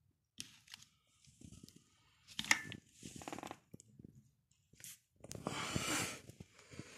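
Handling noises of an angle grinder and its parts: irregular rustling and scraping with a few sharp clicks, in three bursts, the longest and loudest near the end. The grinder's motor is not running.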